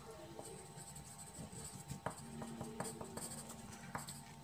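Pen writing on paper: faint, irregular scratching with small ticks as a short note is jotted down.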